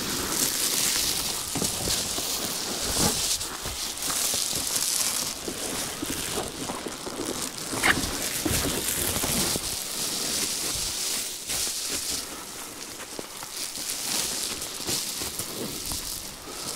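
Reflectix foil-faced bubble insulation crinkling and rustling steadily as it is handled and spread out, with one sharper crack about eight seconds in.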